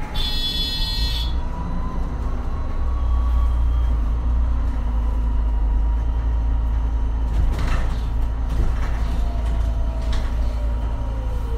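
MAN Lion's City Hybrid city bus heard from inside near the front door. It opens with a short high-pitched buzz, and its electric drive whines, rising in pitch as it gathers speed and falling near the end as it slows. A steady low engine rumble runs underneath, with a few knocks and rattles.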